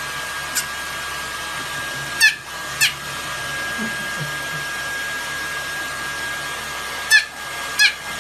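Hair dryer blowing steadily with a constant high whine, as if drying a dog's fur. About five brief sharp downward-sliding squeaks cut in over it: one early, then a pair a little after two seconds in, and another pair near the end.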